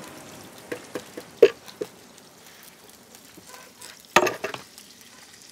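Scattered light clicks and knocks of kitchen utensils over a faint steady hiss, the sharpest about one and a half seconds in and a short cluster of them at about four seconds.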